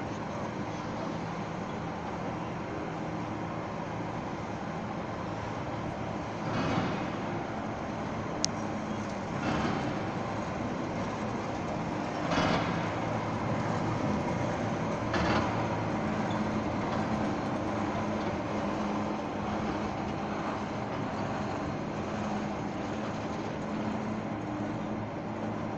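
Railway turntable turning with a 0-6-0 steam locomotive on it: a steady mechanical hum with four soft rushing swells about three seconds apart, then one sharp click. In the second half it settles to a steadier low hum.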